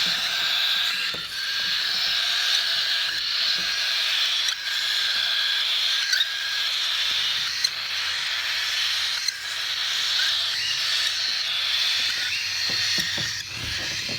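Dense, continuous chatter of many parrots together in an aviary, a steady high-pitched din of overlapping chirps and squawks, with a few low knocks near the end.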